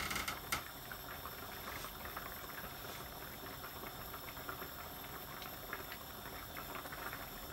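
Coconut-milk fish curry simmering in a frying pan on a gas hob: a soft, steady bubbling with small pops, as a slightly watery sauce is cooked down. There are a couple of light clicks near the start.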